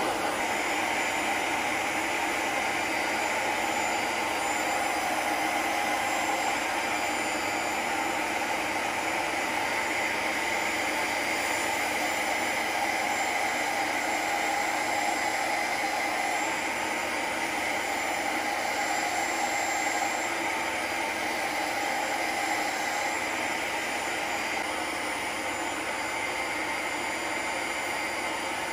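Bissell ProHeat 2X Revolution carpet cleaner running steadily, its suction motor drawing through the handheld upholstery tool as it is worked over a fabric sofa arm.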